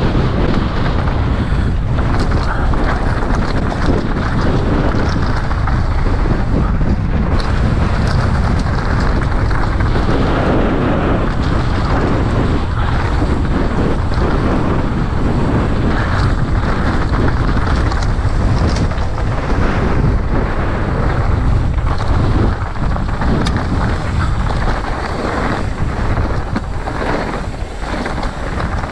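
Strong wind buffeting the microphone while a mountain bike is ridden down a trail, with frequent short knocks and rattles from the bike over rough ground.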